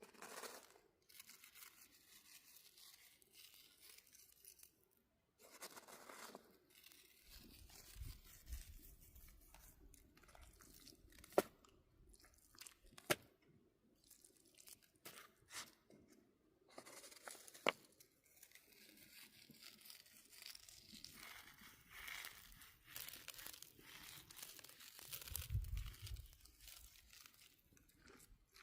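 Faint, irregular crinkling and tearing noises with a few sharp clicks and a couple of soft low thumps.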